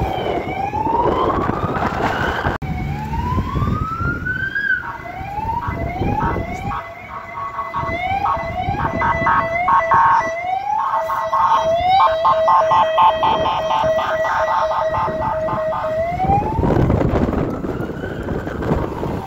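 Fire-rescue van's electronic siren: a slow rising and falling wail, switching about five seconds in to a rapid pulsing, stuttering tone for roughly eleven seconds, then back to the wail. Road traffic rumble runs underneath.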